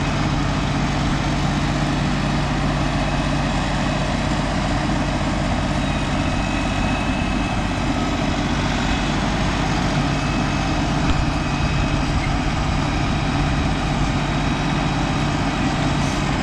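LS MT342 hydrostatic compact tractor's diesel engine running steadily at an even pitch while the tractor works its front-loader grapple.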